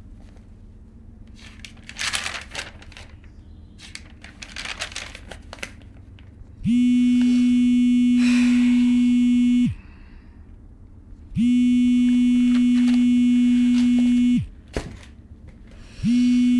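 A phone call ringing: a low, steady, buzzing ring tone, on for about three seconds and off for under two, sounding three times with the last ring cut short. Before the ringing, a few bursts of rustling and crinkling.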